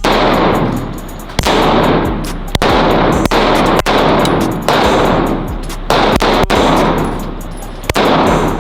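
Gunshots in an indoor shooting range: about seven single shots, irregularly spaced roughly a second apart, each ringing out in the room's echo.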